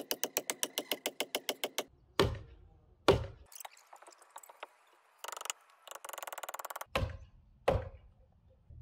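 Hammer blows on the log timbers of a log wall: a fast, even run of strikes for the first two seconds, then four single heavy knocks spread across the rest. Two short buzzing stretches come between them.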